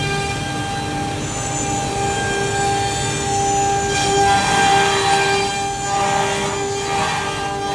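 Multi-spindle CNC router running, its spindles whining steadily as the bits cut bamboo boards. From about four seconds in, harsher rasping cutting noise comes and goes over the whine.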